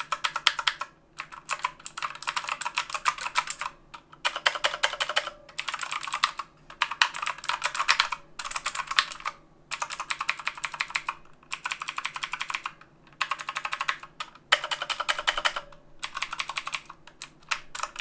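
Redragon K552 Kumara mechanical keyboard with Outemu blue clicky switches, typed on hard and fast. It makes a loud, rapid clatter of clicks in bursts of a second or two, with short pauses between them.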